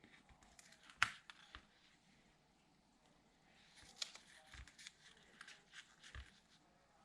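Faint handling of paper die-cut pieces on a tabletop: light rustling and a few small taps and clicks, the sharpest about a second in.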